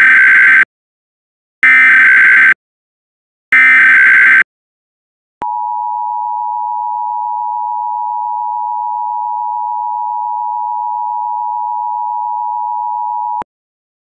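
Emergency Alert System tones for an Emergency Action Notification: three loud one-second bursts of SAME digital header data, about two seconds apart, then the steady two-tone attention signal (853 and 960 Hz) held for about eight seconds, which cuts off sharply.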